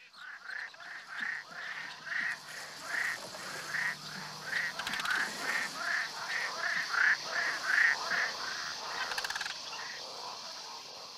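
A quick run of repeated animal calls, about two a second, over a steady hiss. The calls stop about nine seconds in and the hiss fades away.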